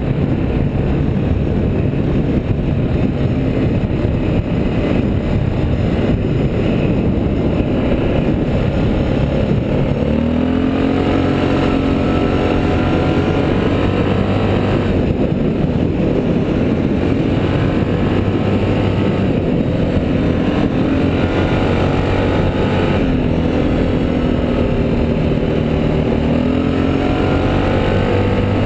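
Off-road vehicle engine running under way, with heavy wind rush over the microphone. From about a third of the way in, the engine's pitch rises and falls several times as it speeds up and eases off.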